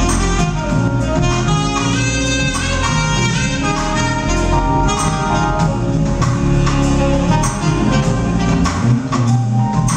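Smooth-jazz band playing live: a tenor saxophone carries the melody over electric bass and drum kit.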